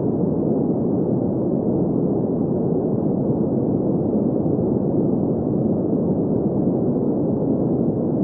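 Green noise: a steady, unchanging hiss centred in the mid-low range between about 200 Hz and 1 kHz, with nothing above about 2 kHz.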